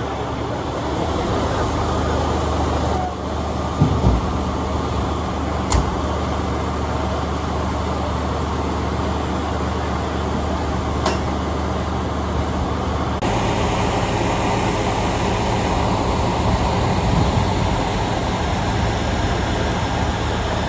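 Steady rumble of a fire truck's engine running at idle, with a low hum and a few brief knocks; the texture of the noise changes abruptly about thirteen seconds in.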